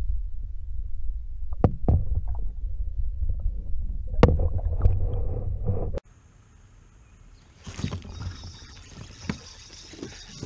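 Muffled underwater rumble picked up by a submerged camera beside a kayak, with several sharp knocks and clicks. About six seconds in it cuts off abruptly to much quieter open-air sound: a faint steady high hiss with a few light clicks.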